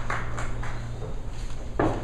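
Audience applause dying away to a few scattered claps over a steady low hum, with a single knock near the end.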